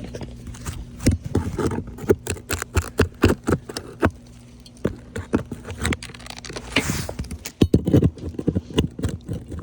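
Irregular knocks, taps and short scrapes of roof shingles being handled and worked into place on a roof, with no steady rhythm.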